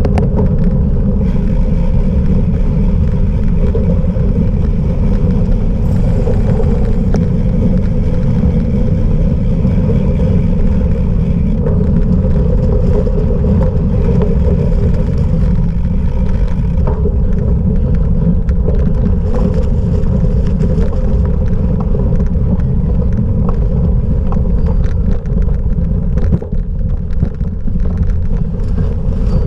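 A cyclocross bike rolling over rough off-road ground, with steady wind rumble on the microphone and many small rattles and clicks from the bike.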